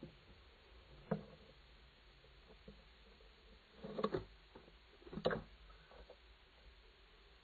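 Faint knocks and scrabbling of barn owl claws on the wooden nest box: a single tap about a second in, then two short bursts of scratching and tapping around four and five seconds in.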